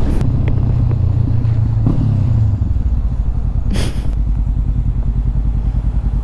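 Honda CB500F parallel-twin motorcycle engine running with the bike under way, a steady drone. About two and a half seconds in it gives way to a lower, evenly pulsing engine note at low speed, with a short burst of noise near four seconds.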